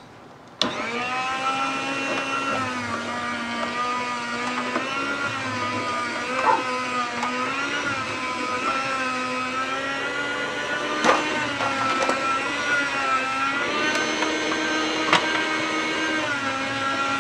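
Electric meat slicer switched on about a second in and running loud, its motor whine wavering in pitch as the blade cuts through a slab of home-cured bacon, with a few sharp clicks.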